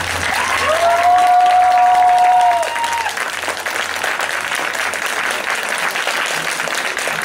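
Audience applauding, loudest in the first couple of seconds, with a couple of long held calls over the clapping during the first three seconds.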